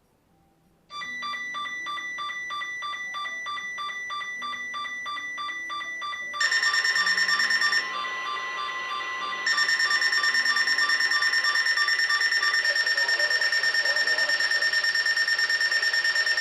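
Electronic weather radio alert alarm sounding for a test broadcast: a pulsing beep at about four beats a second starts about a second in, then a louder, shriller pulsing alarm takes over about six seconds in, stops for a moment and starts again.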